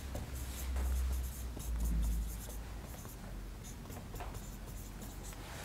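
Felt-tip marker writing on a whiteboard in a run of short scratching strokes, with a low rumble swelling about one and two seconds in.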